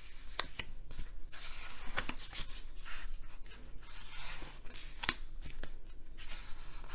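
Pages of a large hardcover art book being turned and smoothed by hand: paper rustling and swishing, with several sharper flicks, the loudest about five seconds in.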